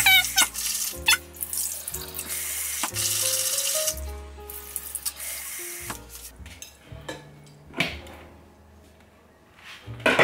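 Tap water pouring into a plastic colander of rice in a sink while hands rub and swish the grains to wash them. The water stops about four seconds in, leaving small splashes as the rice is swirled in the water. Background music plays throughout.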